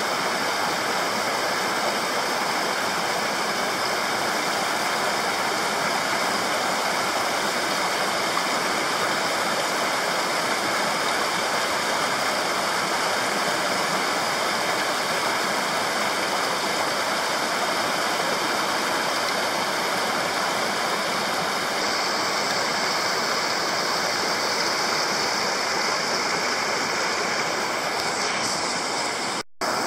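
Small mountain headwater stream rushing over boulders and little cascades: a steady, unbroken rush of water that cuts out for an instant near the end.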